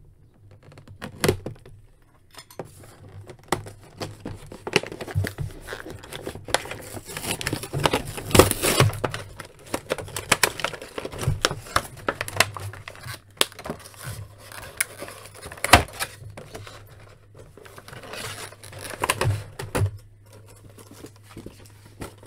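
An action figure's blister package being opened by hand: tape peeling, cardboard tearing and a plastic tray crinkling, with irregular clicks and knocks.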